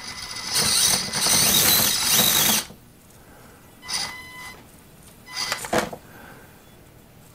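Axial SCX24 micro crawler's tiny electric motor and gear drive whirring as its tyres spin and scrabble for grip on the rock course, sliding rather than climbing, for about two and a half seconds. Then come two short bursts of throttle, about four and five and a half seconds in.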